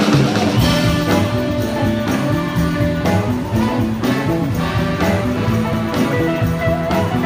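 A live soul and blues band playing: electric guitars over a steady bass line and drum kit, with a horn section of saxophone and trumpets.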